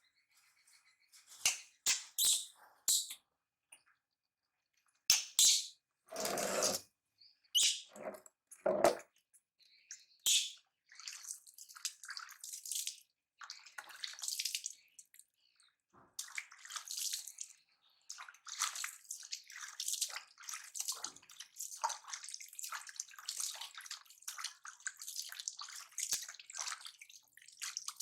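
Water splashing and dripping: a few separate splashes at first, then a busy patter of small splashes and drips through the second half.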